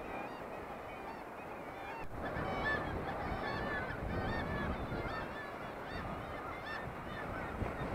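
Many gulls calling at once from a seabird colony on a sea-stack cliff, a dense, overlapping chorus of short calls that grows busier about two seconds in.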